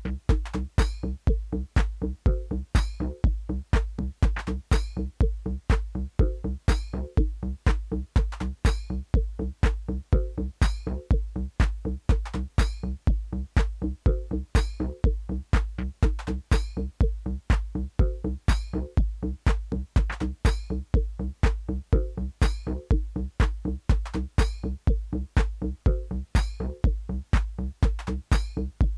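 Techno played live on hardware drum machines and analog synthesizers: a steady kick drum beat with hi-hats over a repeating synth bass riff.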